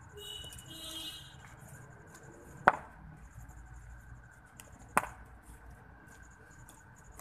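Two sharp knocks of a cricket ball on a bat, a little over two seconds apart, over a faint steady high hiss.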